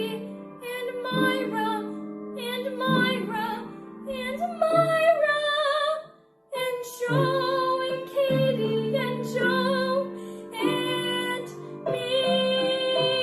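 A woman singing a musical-theatre song with vibrato, accompanied by piano, with a brief pause about six seconds in.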